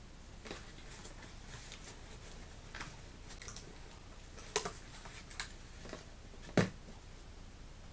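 Scattered rustles and short clicks of a cardboard toy box and its packaging being handled as a small figure is taken out, with two louder clicks in the second half.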